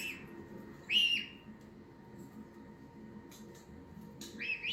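Kitten mewing: short, high-pitched mews, the loudest about a second in and another near the end.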